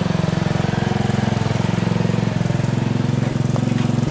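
Agway riding lawn tractor's engine running at a steady speed, with an even, rapid putter.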